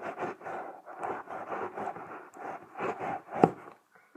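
A mailed package being cut and torn open with a knife: a run of scraping and rustling strokes, with a sharp snap about three and a half seconds in.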